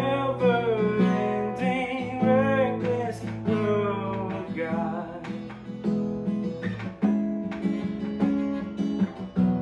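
Acoustic guitar strummed and picked in a slow worship song, with a man singing over it for roughly the first half; after that the guitar plays on alone.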